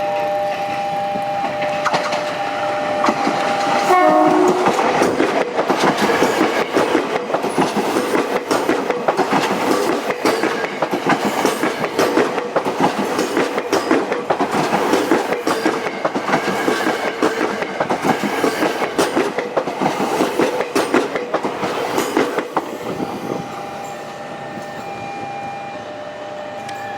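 A train sounds its horn in a steady two-tone blast that breaks off about four seconds in. The train then passes close by for most of the clip, its wheels clattering over the rail joints in a dense, irregular rattle. The clatter eases near the end and a steady tone is heard again.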